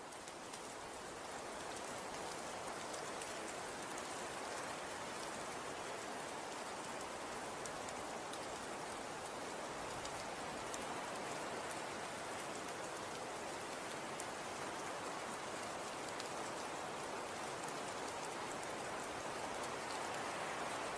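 Falling snow pattering steadily on surfaces: an even hiss with fine ticks, swelling up over the first couple of seconds and then holding steady.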